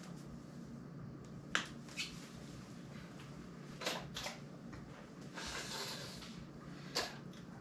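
A person moving about and sitting down at a table: a handful of short, sharp taps and knocks, five in all, with a rustle lasting about a second after the middle, over a faint steady hum.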